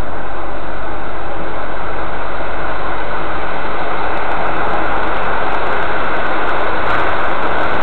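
Steady rumble and rattle of a train carriage in motion, heard from inside, swelling slightly in the second half with a scatter of faint clicks.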